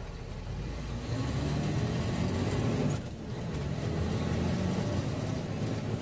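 Truck engine heard from inside the cab, pulling louder about a second in, dropping briefly about three seconds in, then pulling again.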